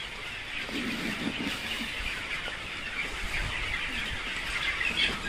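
A shed full of broiler chickens cheeping together, a steady chatter of many short high calls.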